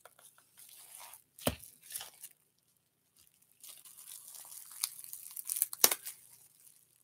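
Packaging of a blush palette being torn open and crinkled by hand: rustling and tearing with scattered clicks, a sharp knock about a second and a half in and another near the end.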